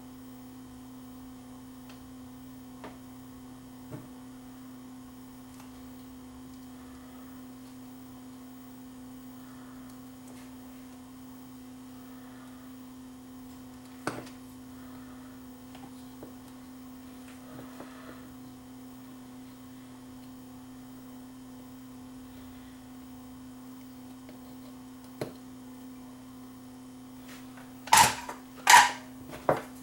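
Steady electrical mains hum with a few faint clicks. Near the end come three sharp knocks, the loudest sounds.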